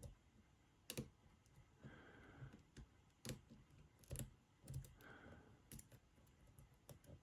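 Faint, scattered clicks of a half-diamond pick working the spool pins of a 40mm jacketed Lockwood padlock held under a tensioner, with two soft hisses in between.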